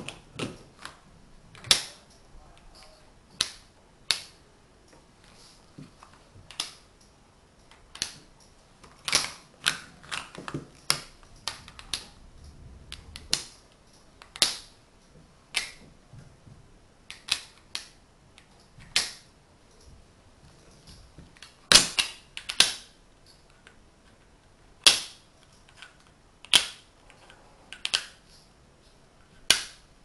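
Tegu magnetic hardwood blocks clicking together as they are snapped into place: sharp, separate clicks at irregular intervals, the loudest pair about three quarters of the way through.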